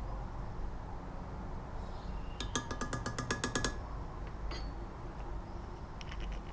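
A small metal scoop tapped quickly against a container rim to shake off glitter, about a dozen ringing clinks in just over a second. Near the end, a few light clicks as the lid is twisted onto the glitter jar.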